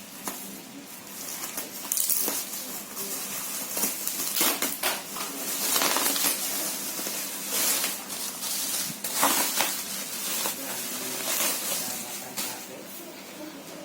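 Irregular clatter, clicking and scraping of hard objects being handled, with small clinks scattered throughout.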